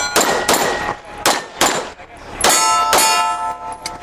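Pistol shots fired at steel targets, about six in four seconds. Hits draw a ringing clang from the steel plates, most clearly on the last two shots about two and a half and three seconds in.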